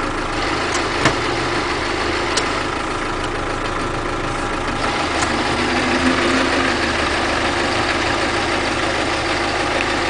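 Land Rover Defender's engine and gearbox running steadily, with the gearbox noise that the owner is recording to show a fault. Two sharp clicks come about 1 and 2.5 seconds in, and the sound grows slightly louder about halfway through.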